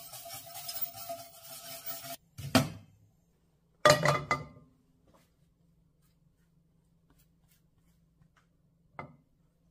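A wire whisk scraping quickly round a stainless saucepan, cut off sharply. Then metal cookware on a gas stove's grates: a single knock with a short ring, and about a second later a louder clattering knock as a frying pan is set down. Near the end comes one small knock.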